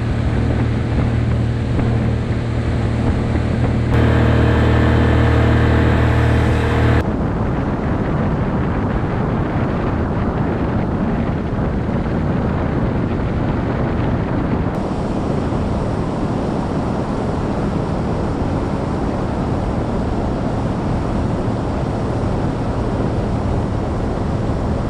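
Motorboat running at speed: a steady low engine hum for the first several seconds, then a loud rushing of wind on the microphone and water against the hull that covers the engine. The sound changes abruptly at about four and seven seconds and cuts off at the very end.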